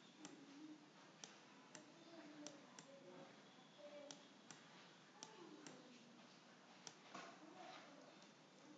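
Faint, irregular sharp clicks, about ten in all, from a stylus tapping a pen tablet as handwriting is added to an on-screen slide.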